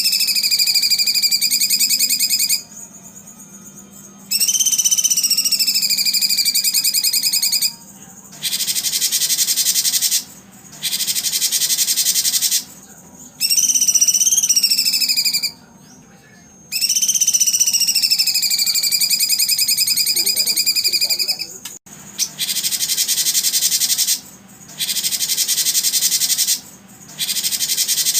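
Songbird singing in loud repeated phrases: long clear whistles that rise and then slide slowly down, alternating with bursts of fast, buzzy high chatter, with short pauses between phrases.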